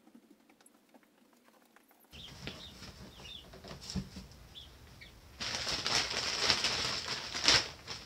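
Baby chicks peeping faintly, with a knock on the cardboard brooder box about four seconds in. From about halfway, a plastic bag of pine shavings rustles and crinkles loudly as it is handled.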